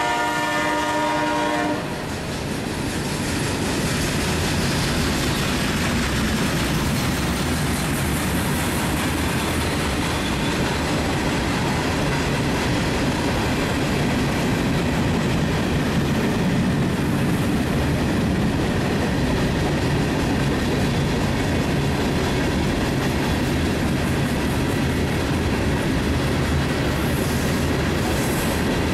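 Freight train cars rolling past, a steady rumble and clatter of wheels on the rails. A train horn chord sounds at the start and cuts off about two seconds in.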